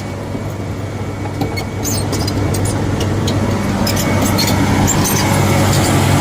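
Bulldozer's diesel engine running steadily with a low hum, with scattered light metallic clinks, growing gradually louder.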